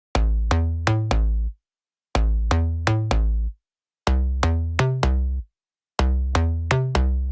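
Electronic background music with a heavy bass line and drum-machine beat, played in short phrases of about one and a half seconds, each broken off by a half-second pause.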